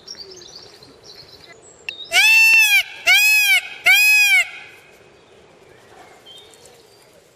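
Indian peafowl (peacock) giving three loud calls in quick succession, each about half a second long and rising then falling in pitch.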